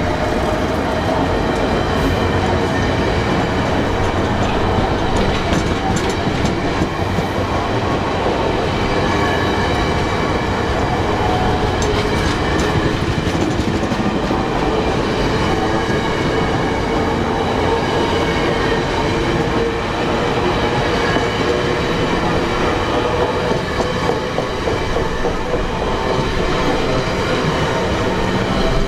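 VIA Rail passenger train's Budd-built stainless-steel cars rolling steadily past, wheels running over the rails with a continuous rumble and faint clicks at the rail joints. Thin steady metallic squeal tones from the wheels sound over the rumble.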